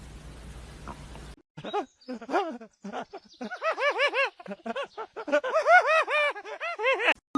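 A cat making quick, repeated chirping calls, several a second, which start after a moment of steady hiss and grow louder and busier, then stop just before the end.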